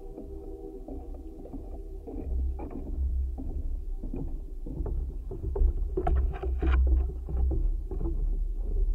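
Wooden marsh boardwalk heard through contact microphones clipped to it: irregular knocks and low thuds of footsteps crossing the planks, busier and louder about six seconds in.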